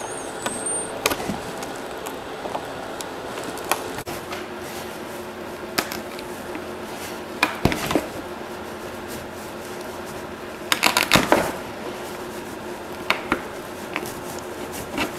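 Scattered clicks and scrapes of a small hand tool prying glued-in trim and upholstery fabric loose from an oak chair frame, with a brief flurry of scraping about eleven seconds in, over a faint steady hum.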